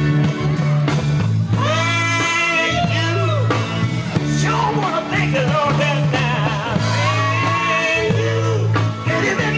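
Gospel group singing live with band accompaniment: voices holding long notes over a steady bass line, with guitar.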